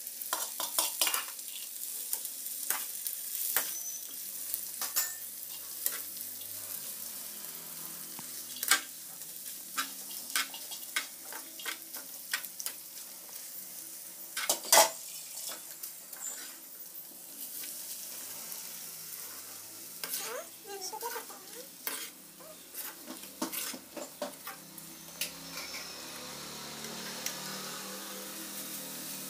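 Dal and moringa leaves frying in hot oil in a pan, sizzling steadily as a slotted steel spatula stirs them, with the spatula scraping and clicking against the pan. One sharp knock comes about halfway through.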